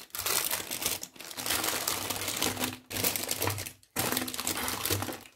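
Baking parchment crinkling and rustling under a freshly baked sponge cake in its metal tray, in four crackly bursts of about a second each.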